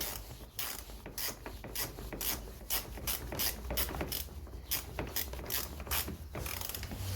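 Hand ratchet clicking about twice a second as screws are turned in.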